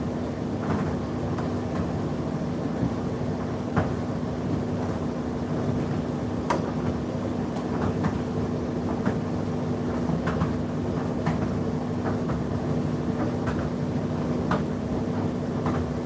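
Indesit IDC8T3 condenser tumble dryer running mid-cycle: a steady motor and fan hum over the rumble of the turning drum, with irregular light clicks and knocks from the load tumbling inside.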